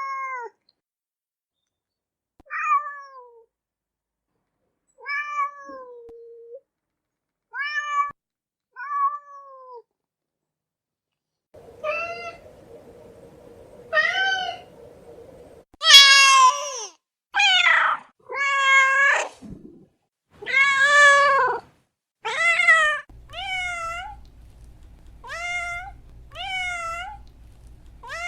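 Domestic cats meowing again and again: short separate meows a second or two apart, with longer, louder meows in the middle.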